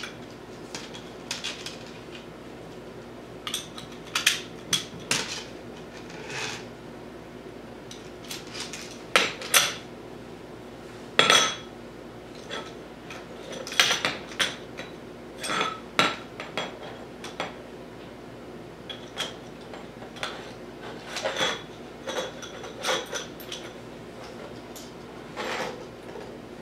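Irregular metallic clinks and knocks as square aluminum tubing, a steel bow saw blade and cotter pins are handled and fitted together while assembling a takedown bow saw.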